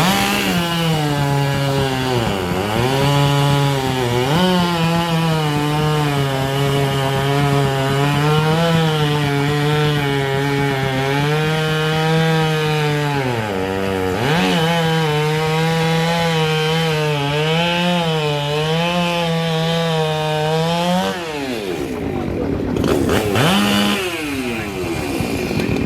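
Two-stroke racing chainsaw running at full throttle through a log. Its engine pitch wavers under load and dips sharply twice. It winds down about 21 seconds in, then gives one short rev that falls away near the end.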